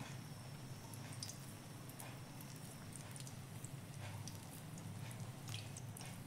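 Pakora batter frying in hot oil in a kadai: a faint sizzle with scattered small crackles, over a low steady hum.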